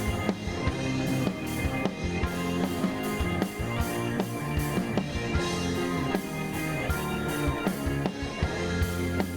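Instrumental rock music with drum kit and guitar over a steady beat.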